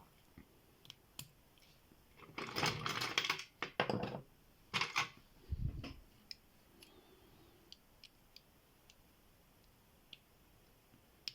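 Small clicks, taps and rattling of a padlock and small metal tools being handled during disassembly. A busy cluster of clicking comes about two seconds in, then scattered light ticks.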